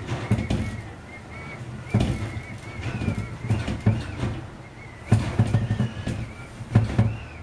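Footsteps thudding irregularly on the floor of an empty railway carriage, with a faint, wavering high whistle-like tone underneath.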